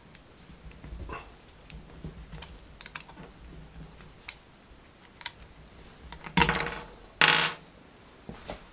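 Small metal clicks as an ER11 collet is pressed into and worked in its steel clamping nut by hand, then two louder knocks about six and a half and seven and a half seconds in as the parts are handled and put down on the workbench.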